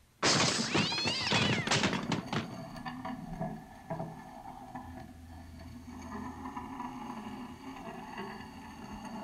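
A sudden, loud animal-like squeaky call with a warbling, wavering pitch lasting about two seconds. It then dies down to a quieter steady background with a low hum.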